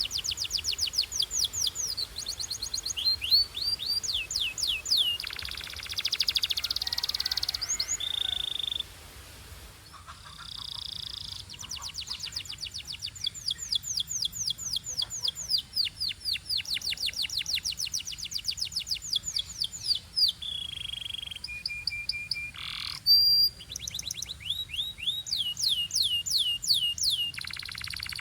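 Domestic canary singing: fast trills of repeated downward-sweeping notes, a rapid buzzing roll, and short held whistles, with a brief lull about a third of the way in.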